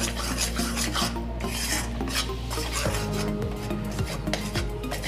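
Spatula stirring and scraping gram flour roasting in ghee in a metal kadhai, in repeated scraping strokes against the pan.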